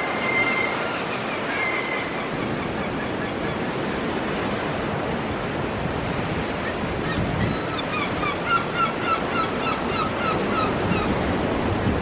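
Ocean surf washing steadily against a rocky shore. Over it a bird calls: a high held note near the start, then a run of short repeated calls, about three a second, in the second half.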